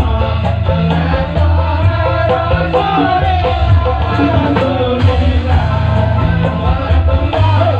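Loud amplified music for a Javanese Badui folk dance, with a singing voice over a heavy, steady bass line.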